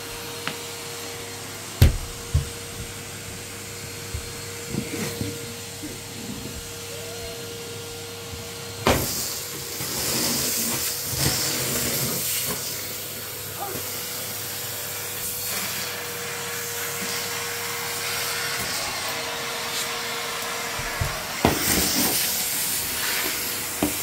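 Henry cylinder vacuum cleaner running with a steady motor whine. From about nine seconds in, louder hissing and rattling as the wand sucks up scattered dry cereal flakes, with a few sharp knocks.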